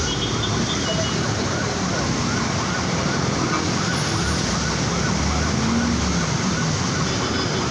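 Steady noise of a truck and traffic driving through floodwater, with a low engine hum, and a faint warbling tone that rises and falls about three times a second in the background.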